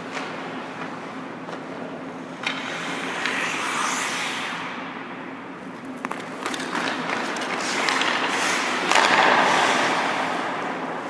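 Hockey skate blades carving and scraping on rink ice, swelling as skaters move, with a few sharp clicks of sticks and puck. The loudest part is a long skate scrape on the ice about nine seconds in.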